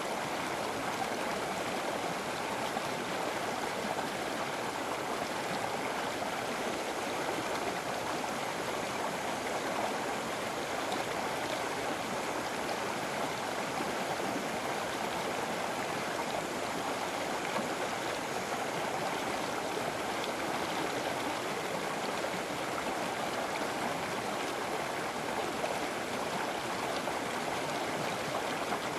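River water flowing over rocks: a steady, even rush of moving water with no breaks.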